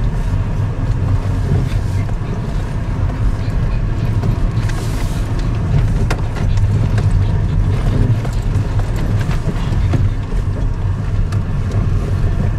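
Inside a Japanese-made car driving slowly over a rough, snowy forest track on studded tyres: a steady low rumble of engine and tyres, with scattered knocks and rattles over the bumps and a brief hiss about five seconds in.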